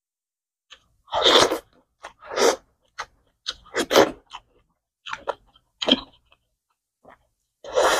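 A person chewing and crunching food close to the microphone, mukbang-style, in irregular bites and chews with short silences between. The loudest come about a second in and about four seconds in.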